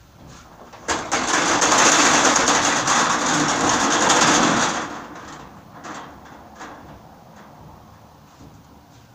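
Corrugated metal roll-up shutter pulled down over a doorway, its slats rattling loudly for about four seconds from about a second in, then a few faint clicks.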